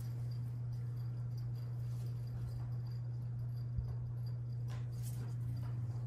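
A steady low hum throughout, with faint clicks and rustles of a glazed ceramic cup being turned in gloved hands about four to five seconds in.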